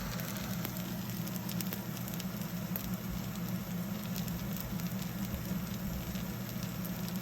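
Food frying in a hot pan, a steady sizzle with many small crackles and pops, over a steady low hum.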